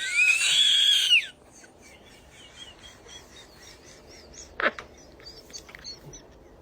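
A person's high-pitched wheezing laugh: a loud squeal rising in pitch for about a second, then trailing off into faint, thin squeaks, with one short sharper squeak past the middle.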